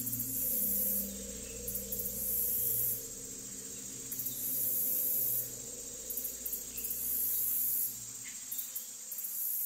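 Eerie ambient soundtrack: a high insect trill like crickets, switching on and off in stretches of one to one and a half seconds, over a low sustained drone.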